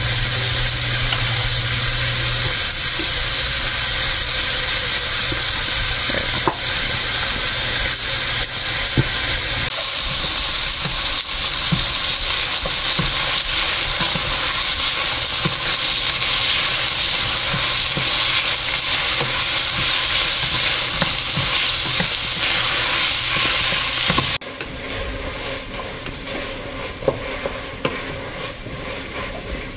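Celery, onions and garlic sizzling as they sauté in a pot, with a utensil stirring and clicking against it. The sizzle gets abruptly quieter about 24 seconds in.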